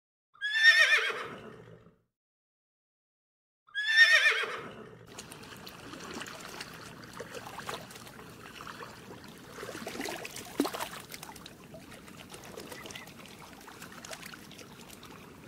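A horse whinnying twice: two loud, wavering calls that fall in pitch, each about a second and a half long. They are followed by quieter steady background noise with scattered light clicks.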